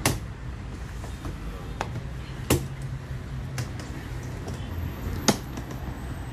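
A handful of sharp knocks and taps, about five spread over six seconds, over a low steady hum.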